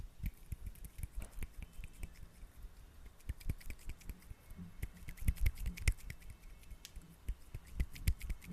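Hands rubbing and squeezing sticky aloe vera gel: a stream of irregular wet clicks and smacks, busiest about five to six seconds in.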